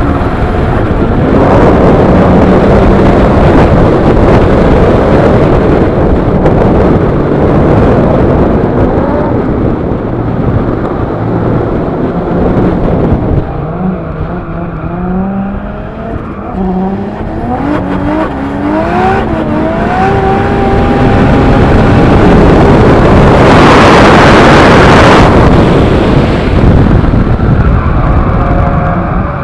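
Toyota 2JZ straight-six with a large T78 single turbo, in a Nissan Silvia S15 being drifted: the engine runs loud at high revs, its pitch climbing and dropping again and again as the throttle is worked. Near the end a loud rushing noise takes over for about two seconds.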